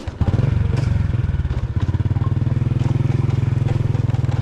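Small motorcycle engine running steadily close by, with a fast, even putter. It comes in suddenly just after the start.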